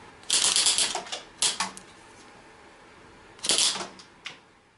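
Hand-twisted TwistMek rubber band gun being worked: its rotating PVC barrel assembly clicks over the firing pins in rapid clattering runs, three bursts and then a single click near the end, as it releases its rubber bands.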